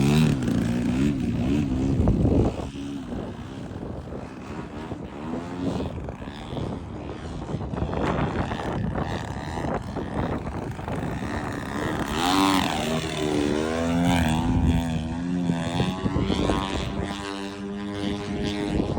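Radio-controlled propeller airplane flying, its motor note rising and falling in pitch, with gusting wind buffeting the microphone, hardest in the first couple of seconds.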